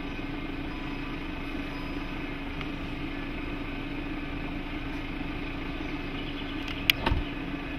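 Jeep Cherokee's power tailgate closing over a steady hum, ending about seven seconds in with a sharp click and a thump as it latches shut.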